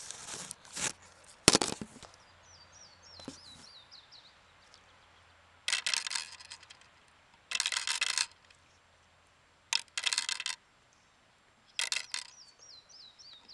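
Steel BBs clinking and rattling as they are fed by hand into the loading port of a Daisy Buck BB gun, in short bursts about every two seconds.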